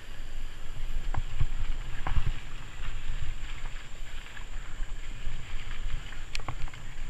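Mountain bike riding over dirt singletrack, recorded from a camera on the bike: a continuous low rumble of tyres and wind on the microphone, with scattered clicks and rattles as the bike goes over roots and bumps.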